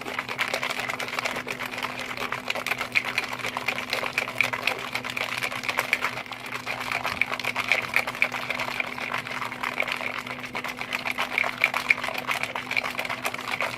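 Plastic shaker cup of G Fuel powder and water being shaken hard: liquid sloshing with a fast, continuous rattle that stops suddenly at the end.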